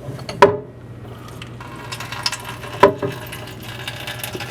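Filtered tap water starts pouring from a faucet filter into a humidifier's plastic tank about a second and a half in and keeps running. Two sharp hollow plastic knocks come about half a second in and just before three seconds, as the tank is handled at the faucet.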